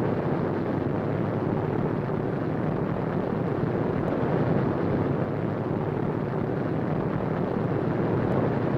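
Radial piston engines of B-17 Flying Fortress bombers running together in a steady, dense drone with no break or change in level.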